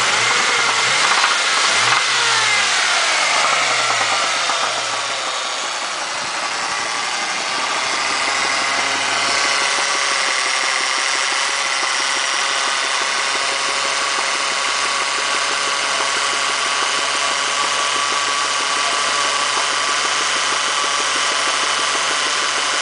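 2003 Ford Mustang engine blipped twice, revs falling back, then settling into a steady idle. The owner says it has piston slap and rod knock.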